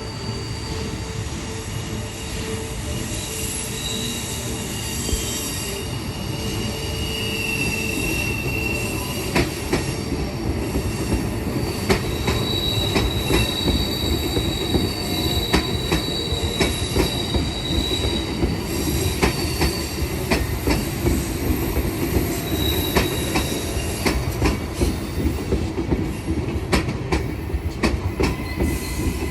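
Queensland Rail electric suburban train moving along the platform, its wheels squealing in high steady tones over a low rumble. From about a third of the way in, rhythmic clicking of wheels over rail joints comes in and grows louder.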